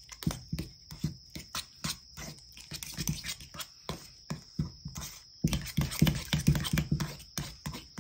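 Metal spoon stirring and scraping soft butter in a small stainless steel cup: an irregular run of clicks and scrapes several times a second that gets busier and louder about five and a half seconds in.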